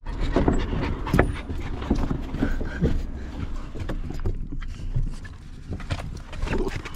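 Dogs panting and moving about inside a car's cabin, with scattered knocks and rustles as they shift and are handled.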